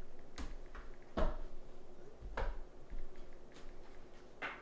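About four separate knocks and clacks of objects being handled, the loudest just over a second in, over a faint steady hum.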